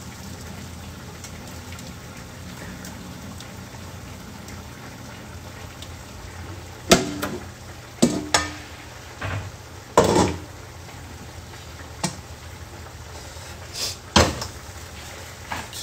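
Kitchen clatter while pasta cooks: several sharp knocks and clinks of pots, lids and utensils, starting about seven seconds in, over a steady low hum and hiss.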